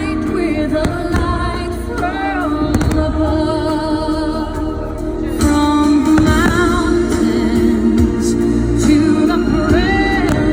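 Music with a singer holding long, wavering notes over a steady sustained accompaniment.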